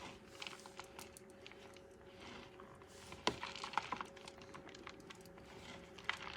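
Faint light clicks and crumbly rustling of riced cauliflower being handled and tipped out of a cloth, with one sharper click about three seconds in, over a faint steady hum.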